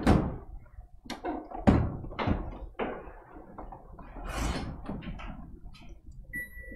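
Knocks and bumps of an AP2006 air purifier's plastic housing and filters being handled and set back in place, a string of sharp knocks in fast-forwarded footage. Near the end a steady electronic beep starts, as from the purifier's control panel.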